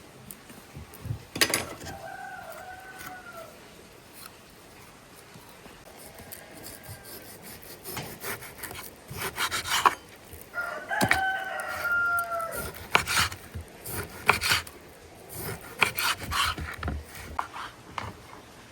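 A rooster crowing twice, a couple of seconds in and again about ten seconds in, over repeated short scraping strokes.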